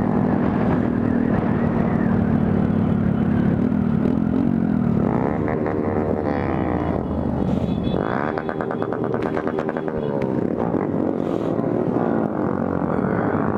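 Honda Grom's small single-cylinder engine running with its muffler gone, holding a steady pitch for a few seconds, then revving up and dropping back twice as the bike accelerates and shifts.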